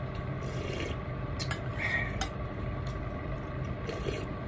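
A spoon clinking a few times against a soup bowl while soup is eaten from it, over a steady low background hum.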